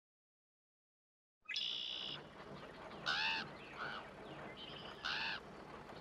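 Farmyard bird calls, honking like a goose: several short calls starting after about a second and a half of silence.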